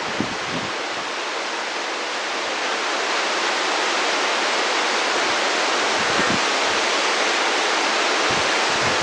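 Heavy monsoon rain falling steadily, growing a little louder about three seconds in, with a few brief low thumps.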